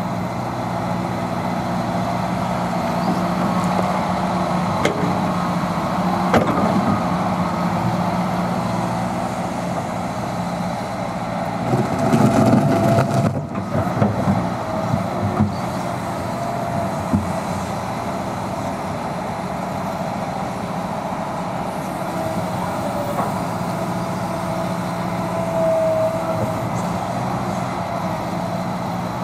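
Liebherr R 926 crawler excavator working: its diesel engine runs steadily under hydraulic load, with a thin whine that comes and goes. About halfway through, a few seconds of louder scraping and knocking as the bucket digs into the soil.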